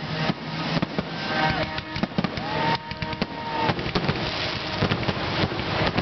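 Aerial fireworks bursting, with repeated sharp bangs and crackling close together.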